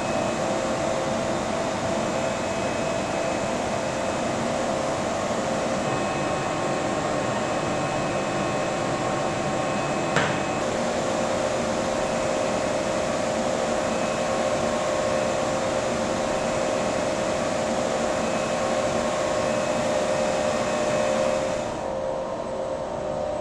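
Steady ventilation and machinery noise, an even whir with a constant hum in it. One sharp click about ten seconds in; near the end the high hiss drops away and the sound gets a little quieter.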